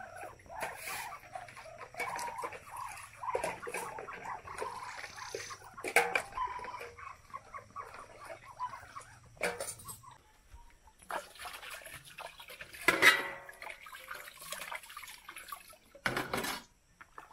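Dishes being washed by hand in metal basins: water splashing and pouring, with metal bowls and pots knocking and clinking a few times, the loudest about thirteen seconds in. Animal calls sound through the first half.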